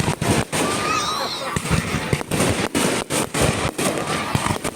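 Fireworks exploding close overhead: many sharp bangs in quick, irregular succession, with a few short whistles among them.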